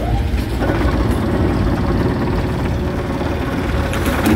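Rock crusher machine running with a steady engine drone; a steady whine joins about half a second in, and there are a few sharp knocks near the end.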